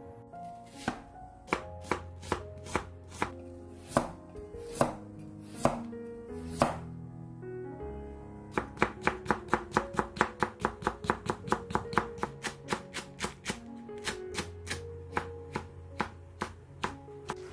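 Kitchen knife slicing carrot and chili peppers on a wooden cutting board: single cuts at first, then a fast even run of about five cuts a second, then slower chopping.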